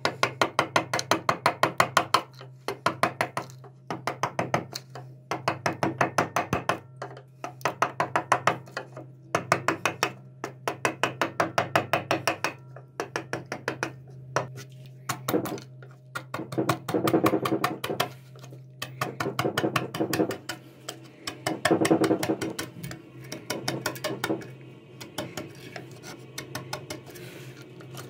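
Carving chisel tapped into walnut with a small hammer in quick runs of light strikes, about five a second, broken by short pauses. From about two-thirds through come denser scraping cuts as the blade pares the wood. A steady low hum runs underneath.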